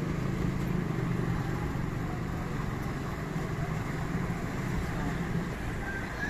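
Steady low background rumble, unchanging in level.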